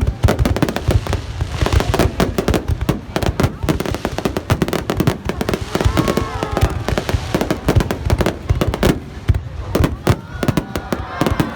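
Fireworks display: a dense, rapid barrage of bangs and crackles, many per second, with no let-up.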